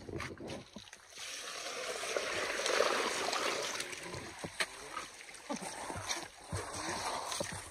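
Muddy water washing down over gravel and sand on a gold-mining sluice carpet: a steady splashing rush that builds about a second in, is loudest around three seconds, and then eases off, with a few small clicks of stones.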